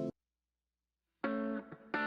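Background music cuts off suddenly, followed by about a second of silence. Then a new track starts with picked electric guitar notes.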